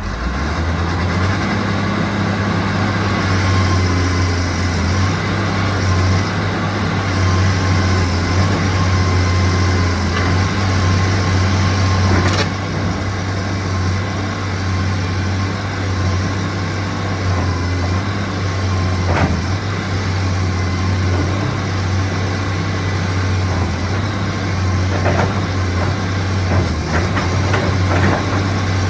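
Diesel engine of a Hitachi EX225USR hydraulic excavator running steadily with a deep, even hum. A few short sharp knocks are heard about halfway through and several more near the end.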